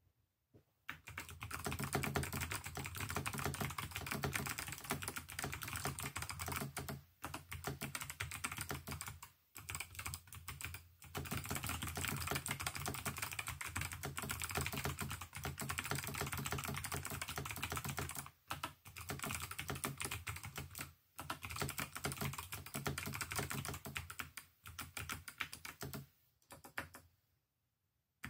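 Fast continuous typing on a Keydous NJ80-AP mechanical keyboard with Kailh BOX White switches: rapid key clacks with a few brief pauses, stopping shortly before the end.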